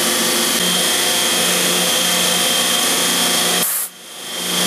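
Fadal CNC milling machine running an engraving cut with its spindle turning a small end mill into a metal rod held on a fourth-axis rotary table: steady machine noise with a constant high tone. The sound cuts out abruptly about three and a half seconds in and fades back up.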